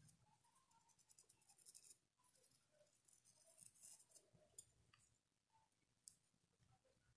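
Faint scratching of a paintbrush stroking paint onto fabric in short, uneven strokes, which die away about four and a half seconds in, followed by a couple of light ticks.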